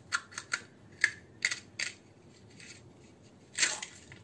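A crisp fried semolina (sooji) golgappa puri crackling in the hand: a series of sharp little cracks, then a longer crunch about three and a half seconds in as it is crushed to pieces. The brittle crackle is the sign of a puri fried properly crisp.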